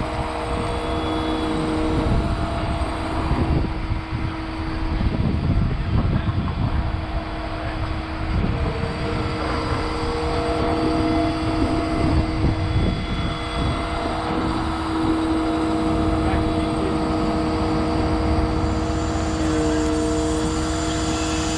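Hydraulic excavator running under working load: a low engine rumble that swells and eases, with a steady whine from the machine that shifts in pitch a few times.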